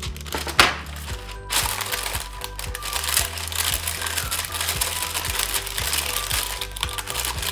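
Paper crinkling and rustling over background music, with a sharp crackle about half a second in and denser crinkly rustling from about a second and a half in.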